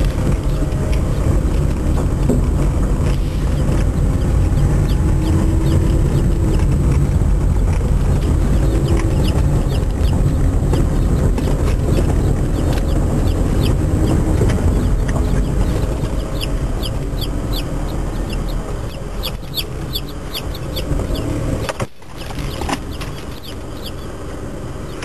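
Day-old chicks peeping in a cardboard shipping box: rapid high peeps, several a second, thickest in the second half, over the steady low rumble of a car driving. A mixed batch of Easter Egger, Dominique, Black Australorp, Buff Brahma and Salmon Faverolle chicks.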